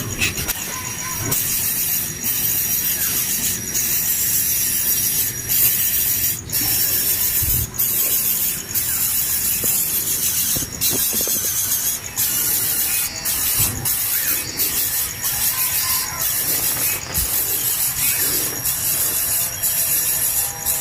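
A steady, dense, high rasping buzz with a thin constant whine running through it.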